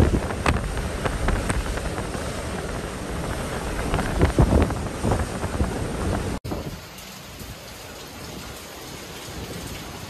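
Typhoon wind gusting hard against the microphone, with heavy surf breaking on a harbour seawall. About six seconds in it cuts off suddenly to a quieter, steady hiss of heavy rain.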